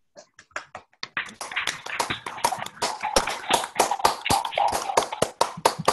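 Applause from a few people over a video call: scattered claps at first, then brisk, steady clapping that stops near the end.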